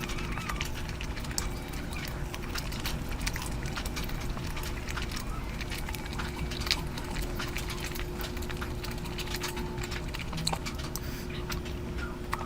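Close-miked eating sounds: irregular wet clicks and crackles of chewing and handling curry, with a steady faint hum underneath.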